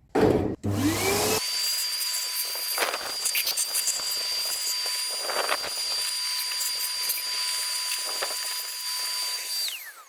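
Shop vacuum switched on, spinning up to a steady whine with a hiss of suction and a few louder passes, then switched off near the end and winding down, used to clean out debris around the engine.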